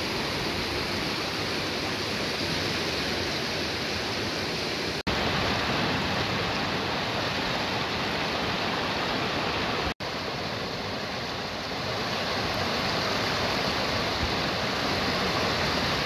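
Kunar River in full flow, its muddy water rushing and churning over rapids in a steady loud roar of water. The sound drops out for an instant twice, about five and ten seconds in.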